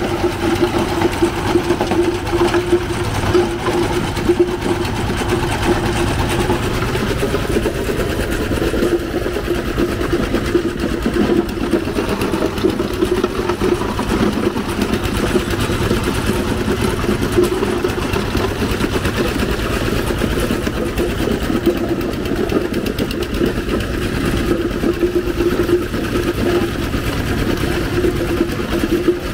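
A small engine running steadily at a constant pitch, with a fast mechanical flutter, over general street noise.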